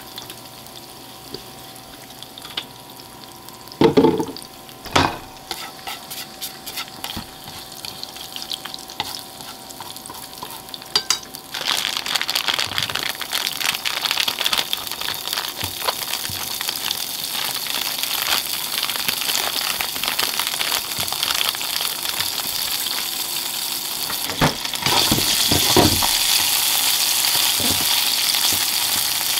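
Garlic and dried red chili sizzling gently in olive oil in a non-stick frying pan, with two knocks a few seconds in. About a third of the way in, chunks of bacon go into the hot oil and the sizzle turns much louder and denser, with chopsticks stirring them; it swells once more near the end.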